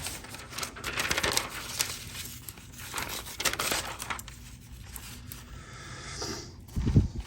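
Thin phone book paper rustling and tearing in a run of short bursts, with a dull thump near the end.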